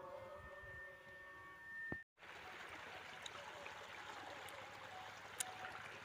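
Faint music with a held high tone, cut off abruptly about two seconds in. After the cut, a faint steady hiss like trickling water, with a few small clicks.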